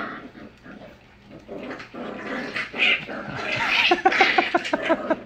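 Pembroke Welsh corgi puppies play-fighting, growling and yapping, with a quick run of short yaps over the last second or so.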